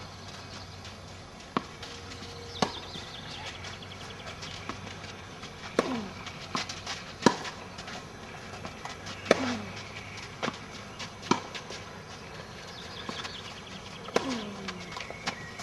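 Tennis ball being hit with rackets and bouncing on the clay court during a doubles rally: a series of sharp pops, irregularly spaced a second or more apart, several of them with a brief falling ring after the strike.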